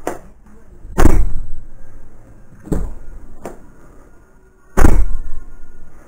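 Chrysler Sebring sedan door slammed shut twice, once about a second in and again near the end, with a few lighter knocks between. The door closes and latches properly now that spacers under its worn lower hinge have lifted it back into line.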